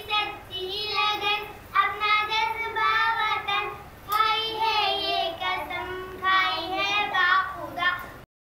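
Two young girls singing a Pakistani patriotic song (milli naghma) in sung phrases with short breaks between lines. The singing cuts off abruptly near the end.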